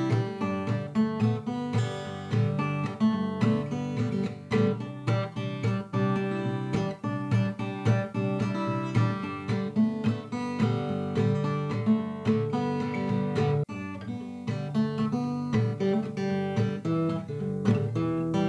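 Background music: acoustic guitar playing plucked and strummed notes with a steady rhythm.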